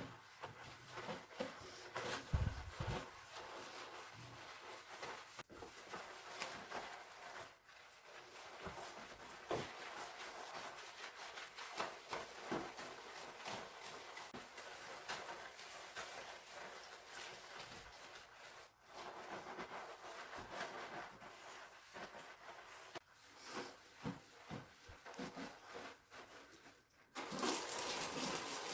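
Cleaning noises: rubbing and handling with many small knocks and clicks, one heavier thud a couple of seconds in. Near the end a tap is turned on and water starts running steadily.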